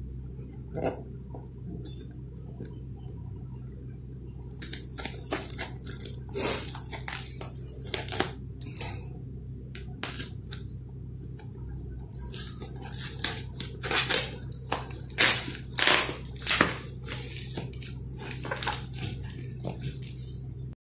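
Plastic wrap and brown packing tape on a parcel crinkling and tearing as it is unwrapped by hand, in irregular bursts that are loudest around the middle and near the end, over a steady low hum.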